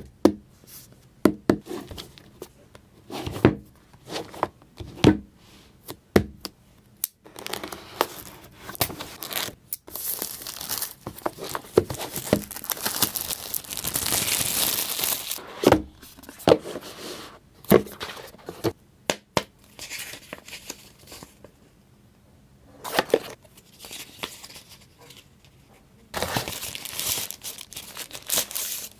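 Smartphone box being unboxed by hand: packaging tearing and crinkling, with scattered taps and knocks as the box and its contents are handled. A longer stretch of tearing or rubbing noise comes near the middle and again near the end.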